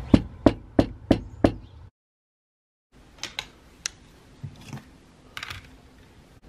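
Five quick knocks of a gloved fist on a door, about three a second. After a second's break come a few light clicks and taps.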